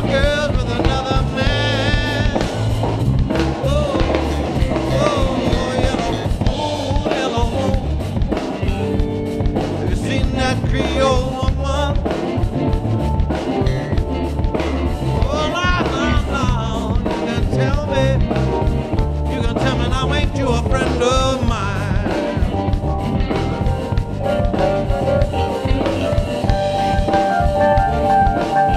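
Live band playing a song on drum kit, electric bass, electric guitar and keyboard, with a wavering lead line over a steady drum beat. Near the end, held steady notes come forward.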